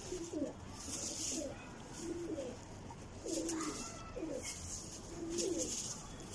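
Domestic pigeons cooing, a run of low coos that rise and fall, about one a second, with short high rustling sounds between them.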